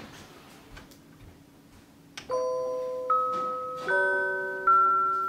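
Seiko Melodies in Motion wall clock playing a tune in its music-box voice. After a click about two seconds in, bell-like notes and chords sound about every 0.8 s, each ringing and fading.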